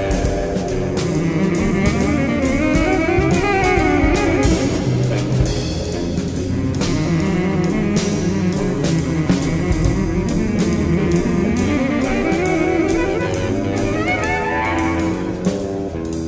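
A live band playing instrumental music: a saxophone plays a wavering lead line over a drum kit with frequent drum and cymbal hits, with electric guitar underneath.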